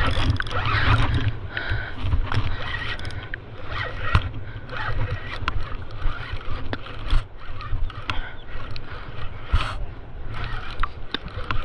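Wind rumbling on the microphone over splashing water, with scattered sharp knocks and scrapes of fishing gear handled while a big jack is fought on rod and reel.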